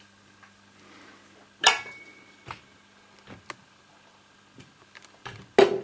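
Sharp metallic clicks and clunks from handling a Bell & Howell 8D 655 16mm film projector, two of them loud and one followed by a brief ring, over a steady low hum.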